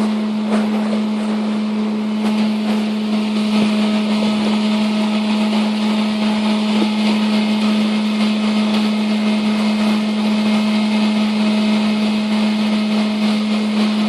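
A small electric motor running steadily at one constant pitch, with a rough hiss over it.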